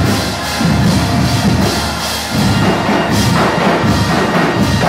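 Large crowd of high school students singing their school alma mater together in a gymnasium, with a regular low beat underneath.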